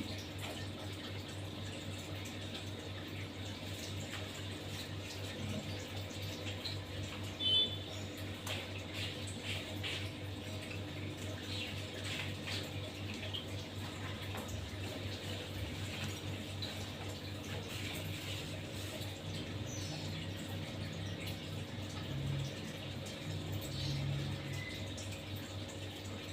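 Steady low hum with a faint even hiss and a few soft scattered clicks.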